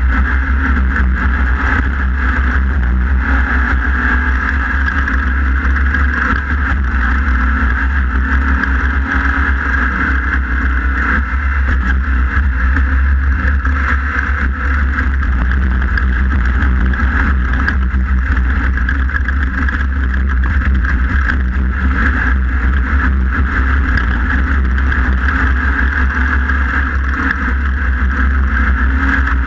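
Onboard sound of a Class 1600 off-road race buggy, its air-cooled VW engine running hard in a steady loud drone, with heavy low rumble from wind and terrain on the car-mounted microphone.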